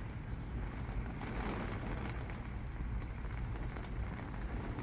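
Rain falling steadily during a thunderstorm, an even hiss with a constant low rumble underneath.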